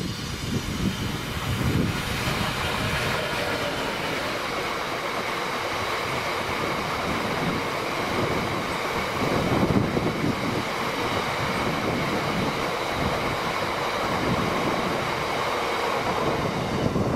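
Class 66 diesel-electric freight locomotive passing close at speed, loudest about two seconds in. A long train of loaded-looking box wagons follows, their wheels rumbling steadily along the rails.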